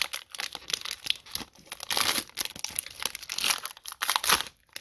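Plastic trading-card pack wrapper crinkling and being torn open, in a dense run of sharp crackles.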